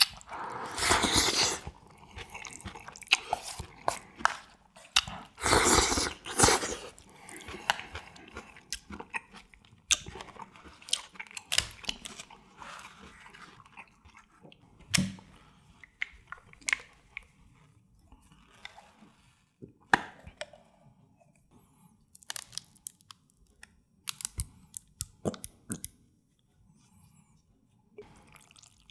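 Close-miked eating of jjajangmyeon: two loud slurps from the bowl, about a second in and again around six seconds, then chewing with many scattered small clicks and taps.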